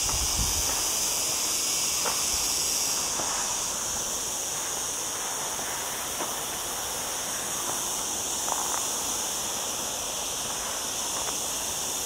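Cicadas singing in a steady, high-pitched chorus. A few faint crunches of footsteps on a gravel path.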